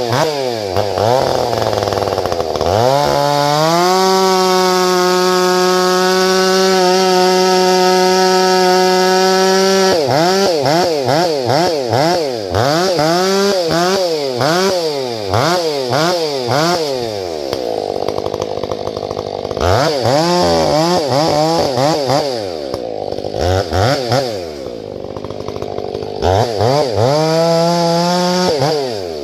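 Two-stroke chainsaw revved up about three seconds in and held at full throttle for around six seconds. It then revs up and down in quick repeated blips for several seconds, drops to a lower, uneven run, and near the end revs up again to a steady high pitch.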